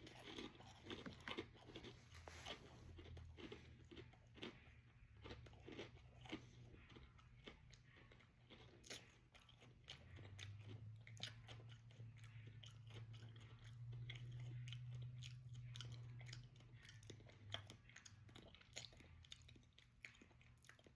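Cheez-It crackers being chewed, a run of faint, crisp crunches. A low hum comes up for a few seconds past the middle.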